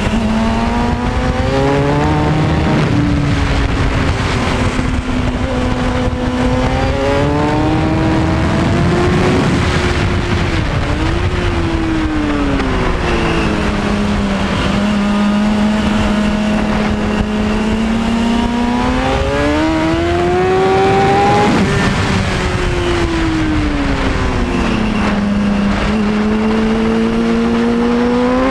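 Onboard sound of a 2003 Kawasaki Ninja ZX-6R 636's inline-four engine at racing speed on track. Its pitch climbs under acceleration and drops back into the corners, again and again, over a heavy rush of wind noise.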